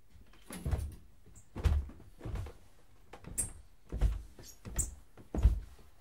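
Footsteps coming down a wooden staircase: a steady series of dull thuds, one step about every two-thirds of a second, with a few short high creaks.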